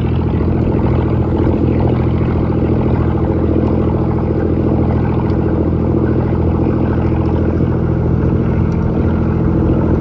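Boat engine running steadily at a constant low speed, a continuous even drone.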